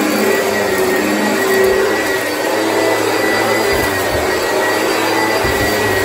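Oreck XL upright vacuum cleaner running steadily, a constant rushing with a high steady whine, as it is pushed over floor mats. A few short low bumps come in the second half.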